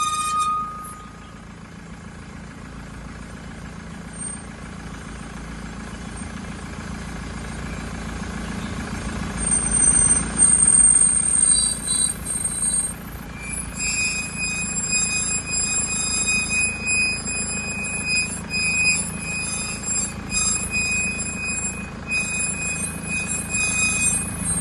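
Car driving, with a low rumbling drone that builds as it gathers speed. A steady high-pitched whine comes in about halfway through.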